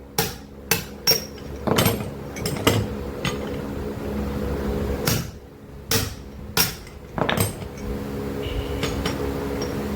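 Hammer blows in a workshop, about a dozen irregular strikes with a pause in the middle, over a steady machine hum.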